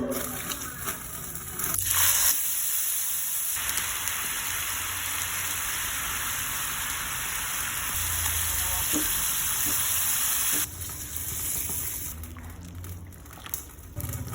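Food sizzling in hot oil in a pan: a steady, loud sizzle that starts about two seconds in and cuts off suddenly about three-quarters of the way through, leaving a few faint clicks and scrapes.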